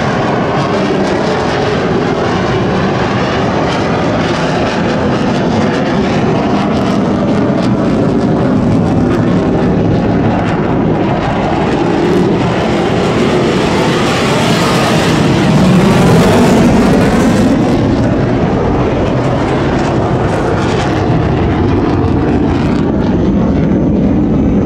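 Sukhoi Flanker-type twin-engine jet fighter flying a display, its engines making a continuous jet noise that swells to its loudest about 15 seconds in, then eases off again.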